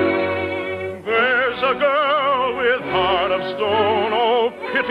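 Operetta song with orchestra: the orchestra holds a chord, then about a second in an operatic singer comes in with a wide vibrato over the accompaniment.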